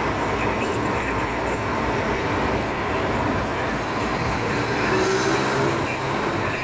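Steady road noise inside a moving car: the rumble of tyres and engine.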